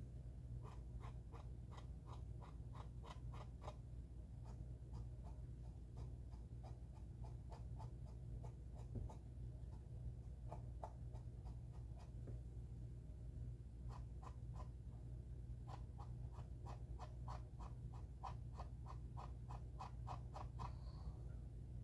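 Quick, light scrubbing strokes of a small applicator rubbing on the plastic hull of a model ship, about three to four strokes a second in several runs with short pauses, over a steady low hum. It is the sound of a weathering wash being blended in by hand.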